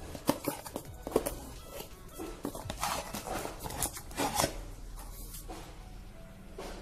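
Handling noise: irregular knocks, clicks and rubbing as hands move a 4-inch woofer speaker about right against the microphone.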